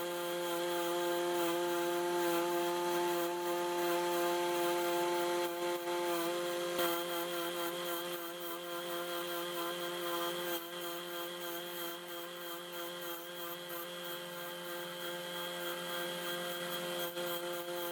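An electric power tool running at a steady speed, giving a steady hum of several pitches over a hiss.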